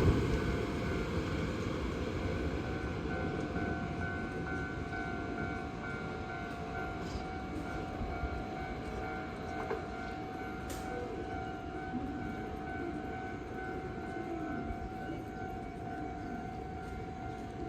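Japanese level-crossing warning bell ringing in a quick, steady repeating pattern, the sign that the crossing is closed for a train. The rumble of a passing Hankyu train fades away in the first second or two, and a low train rumble goes on underneath.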